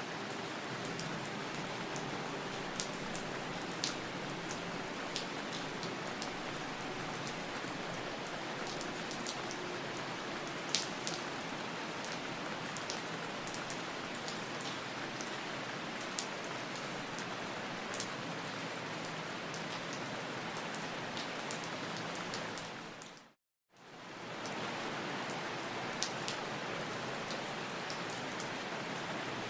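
Steady rain falling, an even hiss with scattered sharp taps of individual drops. About three-quarters of the way through, it fades out to silence for about a second, then fades back in.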